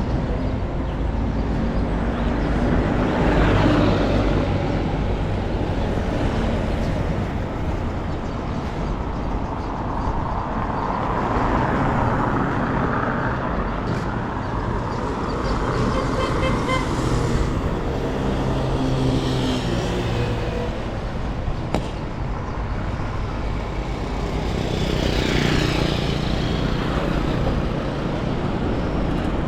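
Street traffic: motor vehicles running and passing close by, a steady engine rumble with engine pitch rising and falling as they go by.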